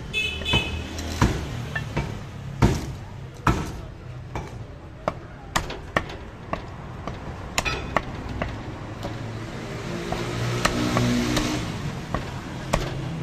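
Meat cleaver chopping and tapping through chicken onto a wooden stump chopping block: irregular sharp knocks, a few much louder strikes in the first few seconds. A vehicle engine hums steadily behind, louder in the second half.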